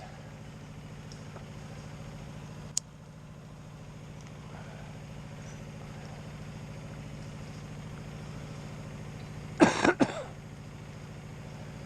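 Logging yarder engine running steadily in the background, with a single sharp click about three seconds in and a short loud burst of voice, like a shout or cough, near the end.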